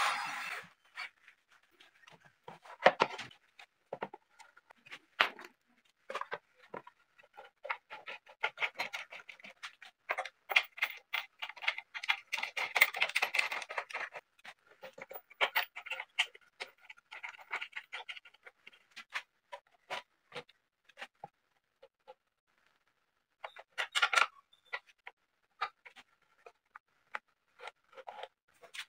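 Scattered clicks, taps and scrapes of wooden and metal parts being fitted and adjusted on a home-made disc sander's tilting table, with a dense run of rapid clicking around the middle and a short cluster of knocks near the end.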